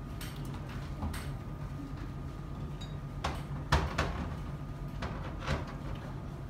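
Steady low hum with a few short knocks and clicks, the loudest a little under four seconds in.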